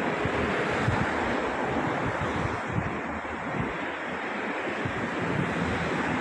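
Wind buffeting the microphone in irregular gusts over a steady rushing noise.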